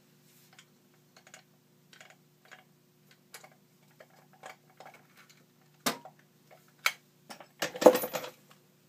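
Small metallic clicks and taps as a Bilock lock cylinder is worked loose from a small bench vise by hand. Two sharper knocks come about two thirds of the way in, then a louder metal clatter near the end as the parts are set down.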